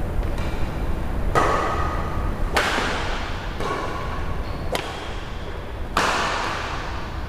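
Badminton rackets hitting a shuttlecock during a rally: four sharp strikes about one to two seconds apart, each ringing briefly in the hall.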